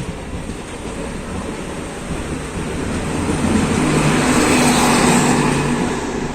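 A train on the next track passing in the opposite direction, heard from a moving train: a rushing sound with a steady low hum that swells over a few seconds, peaks, then eases, drowning out the rail-joint clatter of the train carrying the camera.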